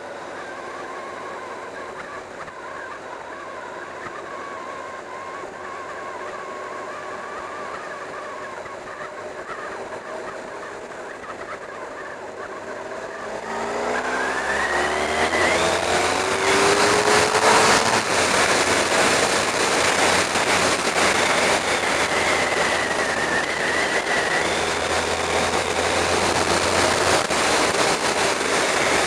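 Sport motorcycle engine cruising steadily with wind noise, then about halfway through it is opened up hard: the engine note climbs quickly and holds high and loud under wind rush, easing slightly a few seconds before the end.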